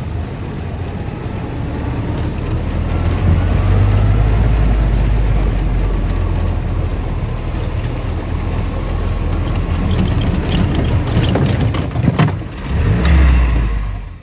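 Off-road jeep driving along a rough grassy trail: a steady low engine and drive rumble, with a cluster of knocks and clatter from about ten seconds in and a brief surge in level near the end.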